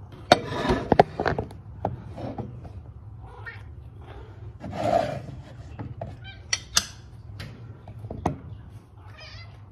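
Domestic cat meowing for food, giving short, high meows, the clearest near the end. Under them come several sharp clicks and knocks of things being handled, loudest in the first second and a half.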